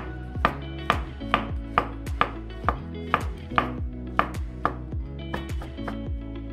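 Chef's knife slicing shiitake mushrooms on a wooden cutting board, the blade knocking on the board about twice a second in an even rhythm.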